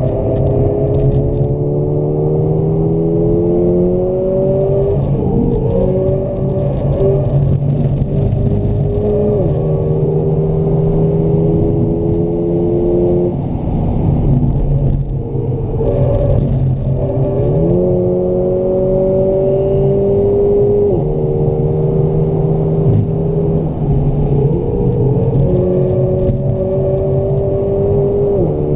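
Mercedes-AMG A 45's turbocharged 2.0-litre four-cylinder engine pulling hard on a track lap, heard from inside the cabin. Its pitch climbs and falls back at each gear change, several times, with a short lift about halfway through.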